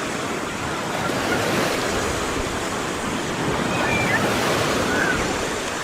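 Sea surf washing onto a beach: a steady rush of small breaking waves.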